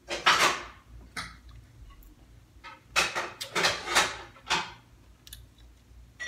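A man chewing a bite of braised beef, with a run of short, noisy mouth sounds: one just after the start and a cluster of four about three to four and a half seconds in.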